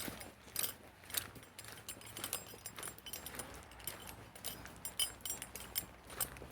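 Small metal gear jangling and clinking in step with a hiker's footsteps, a sharp click roughly every half second.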